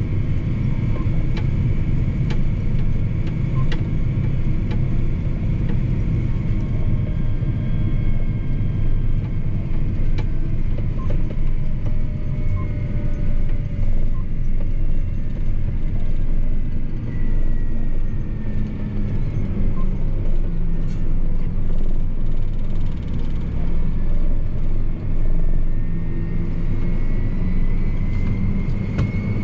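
Cab interior sound of a John Deere 8245R tractor on the road towing a tandem trailer: the diesel engine and drivetrain run with a steady low rumble and light scattered ticks. A thin whine rises in pitch over the last few seconds.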